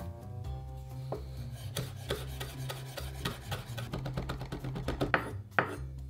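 Chef's knife chopping fresh herbs on a wooden cutting board: a quick run of knife strokes starting about a second and a half in and ending with two louder knocks, over background music.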